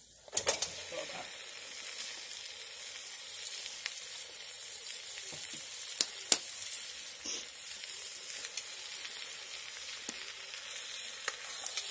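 Raw meat chunks tipped into hot rendered pork fat and fried onions in a black pot over a wood fire, hitting with a loud sizzle about half a second in. Steady frying follows, with scattered sharp pops, and the meat is stirred with a ladle near the end.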